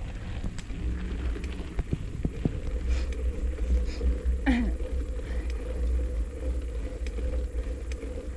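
Wind rumbling on the microphone of a bicycle-mounted camera as the bike rolls along a paved road, with a steady hum and scattered small rattles from the ride. About halfway through, a short squeal drops quickly in pitch.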